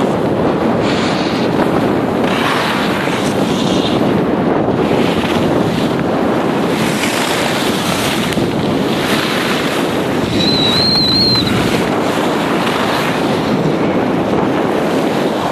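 Wind rushing over the microphone while riding fast down a packed-snow slope, mixed with the hiss and scrape of edges on snow. A brief high squeak sounds about ten seconds in.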